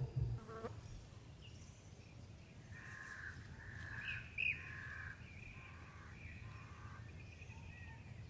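Birds calling outdoors, a run of short repeated calls that start about three seconds in, over faint steady low background noise.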